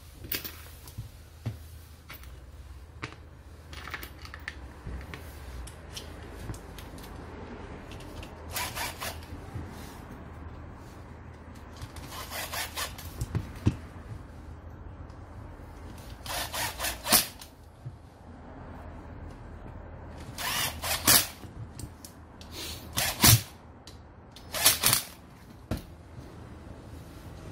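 Hands reassembling an electric angle grinder: metal parts and screws clicking and knocking against the housing and bench, with about six short, loud bursts as a cordless drill-driver runs the housing screws in.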